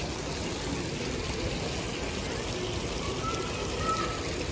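Water sheeting down a tiled wall fountain and splashing into its shallow pool: a steady pouring, rushing sound.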